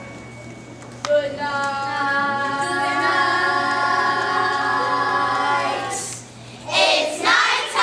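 A children's chorus singing one long held note together, then a brief louder burst of voices near the end.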